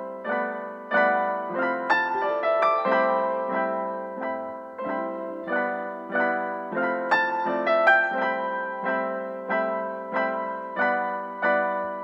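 Background piano music: single notes and chords struck about every half second to a second, each dying away.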